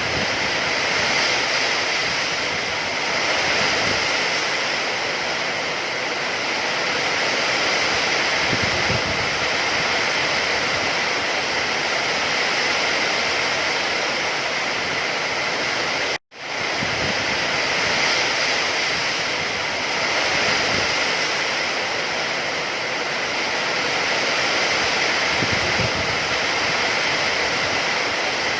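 Steady, dense hiss of heavy rain, unbroken and even. About sixteen seconds in it cuts out for a moment and fades straight back in.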